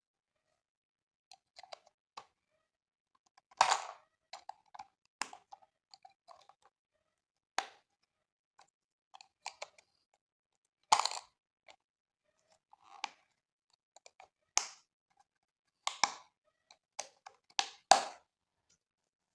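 Unboxing handling sounds: scattered clicks, taps and crinkles of packaging and plastic items being handled, with short quiet gaps between them. The sharpest knocks come about four, eleven and eighteen seconds in.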